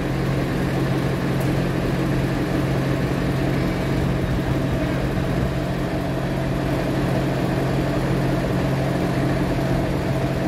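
Crane engine running steadily, with a low, even hum throughout.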